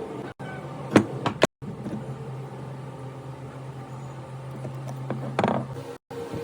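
24-inch high-speed fan running with a steady low hum, with a few sharp knocks about a second in and a short rattling clatter near the end: the noise problem the fan is making.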